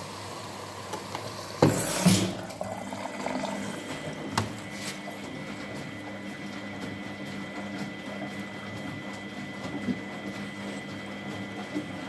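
Miele front-loading washing machine in its wash cycle: the drum turning wet laundry, water sloshing over a steady motor hum. A couple of loud knocks about two seconds in, and a sharp click a couple of seconds later.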